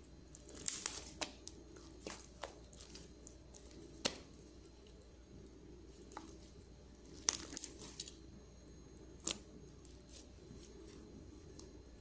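Faint, scattered crackles and clicks from hands working homemade slime while glitter is added. There are small clusters of sharp crackling about half a second in, around four seconds, and again around seven and nine seconds.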